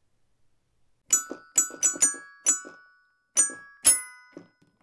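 A short jingle of bright struck mallet-percussion notes, glockenspiel-like: about seven notes, each ringing briefly and dying away, starting about a second in.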